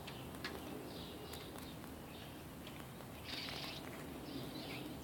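Faint birds chirping in the background, several short calls spread through the pause, with a few light clicks.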